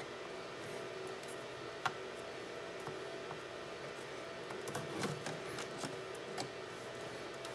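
Small clicks and taps of screws and a screwdriver being handled on a laptop display assembly while the screen's mounting screws are started: one sharp click about two seconds in, then a run of light ticks and taps a few seconds later, over a steady background hum.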